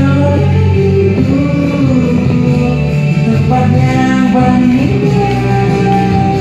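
Background music: a song with singing over guitar and a steady instrumental backing.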